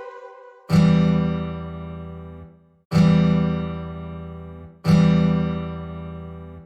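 Background music: three sustained chords, each struck and left to ring and fade, about two seconds apart.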